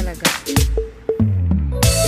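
Background music with a steady beat. The treble drops away briefly about halfway through, and the full mix comes back shortly before the end.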